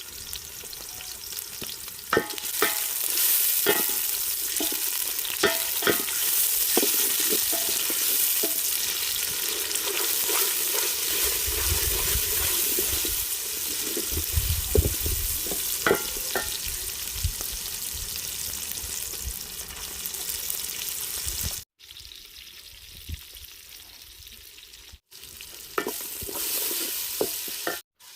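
Food frying and sizzling in hot oil, with a spoon stirring and clinking against the pot now and then. The sizzle drops quieter after a cut about three-quarters of the way in, then comes back loud near the end.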